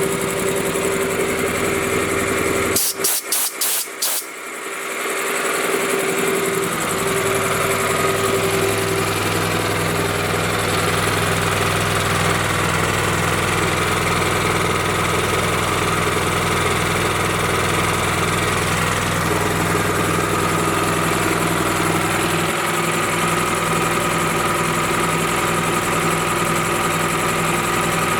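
Honda GX390 engine on a gas-powered air compressor running steadily. A few sharp clicks about three seconds in are followed by a deeper, heavier running from about seven seconds on, as the engine comes off idle and the three-piston pump fills the tank.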